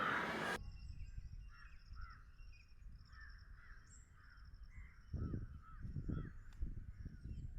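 A loud rushing noise cuts off abruptly about half a second in. Several birds then call, with short harsh calls and a repeated high pulsing trill, over a low rumble that swells a few times near the end.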